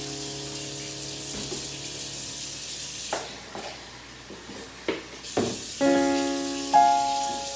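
Background piano-like music with sparse struck notes, growing fuller from about six seconds in, over a steady hiss from a lidded pot simmering on a gas burner.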